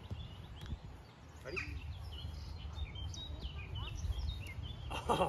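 Outdoor background of birds chirping, many short calls over a steady low rumble, with brief voices about a second and a half in and again near the end.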